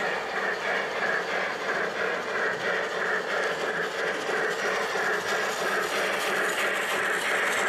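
Gauge 1 (1:32 scale) model train running on the layout, with a steady rhythmic clatter.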